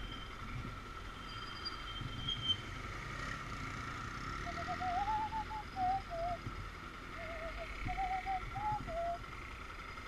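Motorcycle engine idling while stopped at an intersection. About halfway in, a short warbling, wavering tune rises and falls over a few seconds, the loudest sound here.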